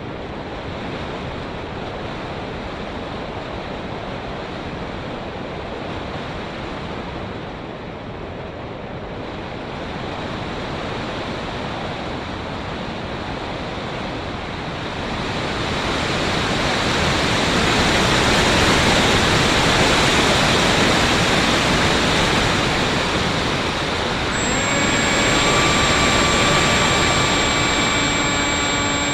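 Airflow rushing over the onboard microphone of a Bixler FPV plane, a steady noisy hiss that swells louder partway through. Near the end the electric motor's whine comes back in as a set of steady tones over the rush.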